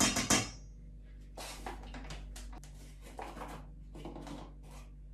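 A measuring scoop dipping into a bag of flour and tipping it out. A dense rustling scrape comes at the start, followed by several shorter rustling scrapes.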